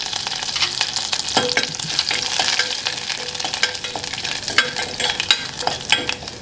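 Mustard seeds and curry leaves frying in hot oil in a stainless steel pan, a steady sizzle peppered with many sharp crackles and pops as the seeds splutter: the tempering stage of an Indian chutney.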